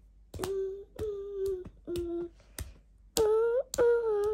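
A young boy humming a wordless tune in short held notes, with a sharp click roughly every half second keeping the beat. About three seconds in the notes get louder and swoop up and down in pitch.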